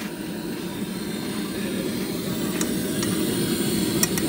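Gas stove burner running with a steady low rush under a steel saucepan of milky tea. A steel ladle clinks lightly against the pan a few times in the second half.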